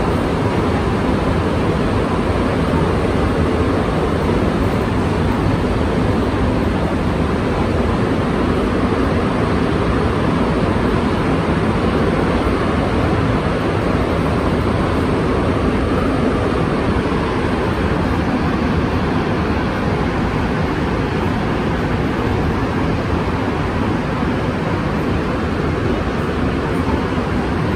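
Montreal Metro rubber-tyred train running at speed through a tunnel, heard from inside the car as a loud, steady running noise.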